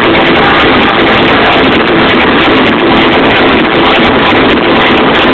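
Loud electronic dance music over a club sound system, picked up by an overloaded camera microphone, so it comes through as a dense, steady, distorted roar.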